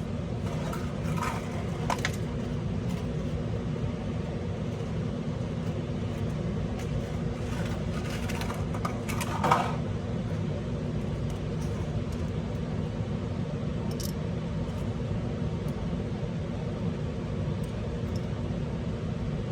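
Steady low background hum, with a few small clicks and one louder brief scrape about nine and a half seconds in as small frame screws are handled and driven into a paintball marker's frame.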